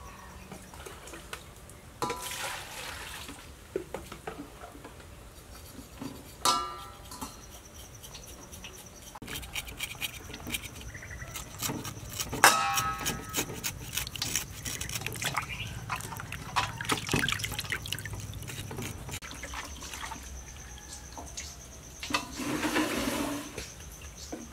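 Knife scraping the skin off a boiled pig tongue in a metal bowl of water, with wet splashing and a few sharp clinks. A steady high insect whine runs behind it from about a quarter of the way in.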